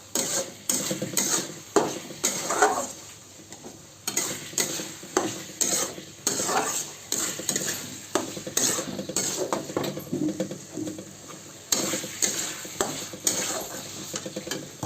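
A spoon stirring and scraping chicken curry in a kadai, in many irregular strokes, over the sizzle of the curry frying with a little water just added.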